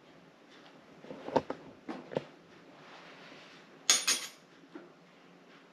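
Light clicks and taps of a metal spoon and a small vanilla bottle being handled, then a louder metallic clank with a brief ring about four seconds in as the metal spoon strikes the stainless steel mixing bowl.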